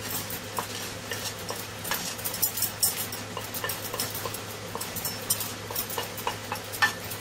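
A metal spoon scraping and tapping against a small dish as spices are pushed off it into a frying pan of diced squash: irregular light clicks and scrapes over a steady low hum.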